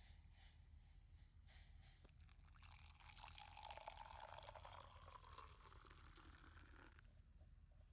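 Water poured in a thin stream into a stainless steel tumbler of instant coffee. It starts about three seconds in, rises a little in pitch as the cup fills, and stops near the end.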